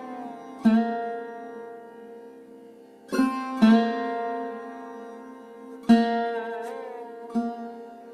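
Slow instrumental meditation music on a plucked string instrument. Single notes are struck every one to three seconds and left to ring, some sliding in pitch, over a steady held lower tone.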